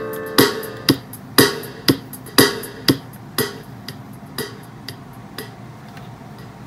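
A chord on a Casio electronic keyboard dies away, under steady sharp clicks from the keyboard at about two a second that grow fainter.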